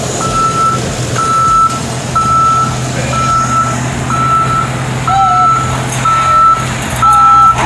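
A construction crane's back-up alarm beeping steadily about once a second as the crane moves out, over the steady drone of its engine.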